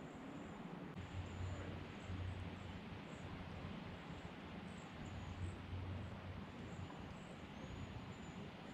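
Faint footsteps of someone walking along a dirt path strewn with dry leaves, soft and uneven. Faint, very high-pitched short chirps repeat throughout.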